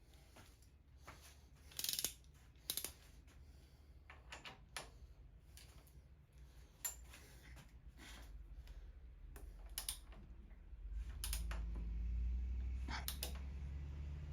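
Scattered metallic clicks and taps of hand tools working on the Harley's handlebar riser bolts. A low hum comes up about eleven seconds in.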